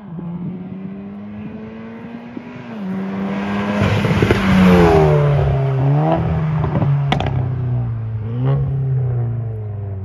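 Stage 2 Volkswagen Golf 7.5R with a custom exhaust accelerating along the road and passing by. Its engine note climbs and drops in steps through the gears and is loudest about four to five seconds in, with a sharp crack about seven seconds in.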